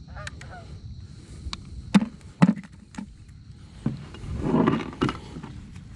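Handling noise of a 2100 lb single-sided fishing magnet and its rope on a wooden pier rail: a few knocks and thuds, the loudest two about two seconds in, then a rougher scraping rustle about four and a half seconds in.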